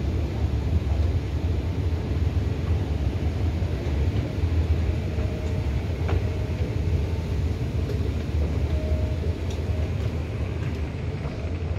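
Steady low rumble of a metro station's machinery and air, heard while riding an escalator up, with a few faint short beeps and a single click about six seconds in.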